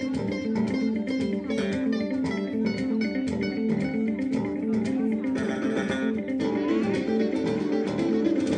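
Live ensemble of sitar, guitar, bass guitar and hand drums playing a steady repeating groove, with sharp drum strokes throughout and a few gliding sitar notes.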